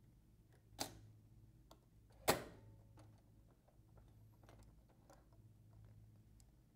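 Sewing machine fitted with an Accustitch stitch regulator making only a few isolated stitches: two sharp clicks about a second and a half apart, then faint scattered ticks over a low steady hum. The spring-loaded factory free-motion foot presses on the fabric so it can hardly be moved, and the regulator stitches only sporadically.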